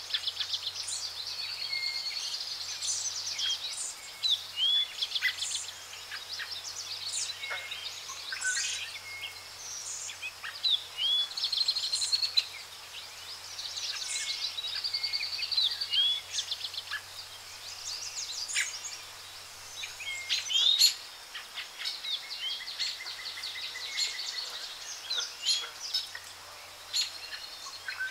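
Birds calling and singing: short upslurred chirps and fast trills, one after another, some notes sharp and loud.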